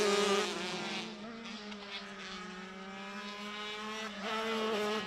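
125 cc crosskart engines running at high revs as the karts race past. The note sags slightly and climbs again, then jumps up about four seconds in.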